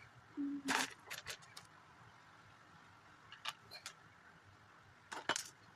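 Lego plastic pieces clicking and clattering as they are handled and sorted, in a few scattered clicks.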